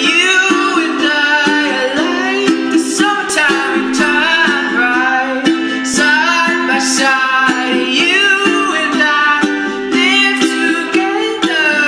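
Music: a song with a voice singing over a plucked string accompaniment, with little low bass.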